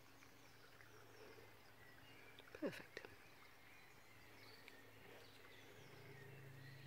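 Near silence with faint woodland birdsong, and one short call falling in pitch about two and a half seconds in.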